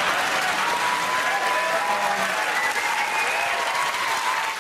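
Studio audience applauding, dying away near the end.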